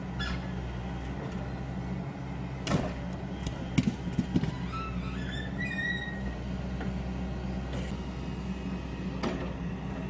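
Yanmar mini excavator's diesel engine running steadily under hydraulic load as the arm and boom move. A sharp knock comes about three seconds in, then a short run of heavy thuds about a second later as the grab lets go of a rough field stone and it drops onto the stone pile.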